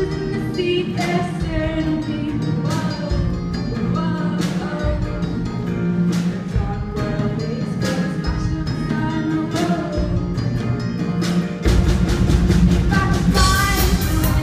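Live band playing a pop-rock song: a singer over steady strummed strokes, with the full band coming in louder and heavier about twelve seconds in. An audience starts cheering just before the end.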